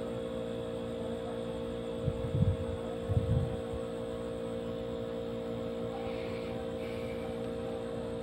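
A steady, even hum, with two short low thumps about two and three seconds in.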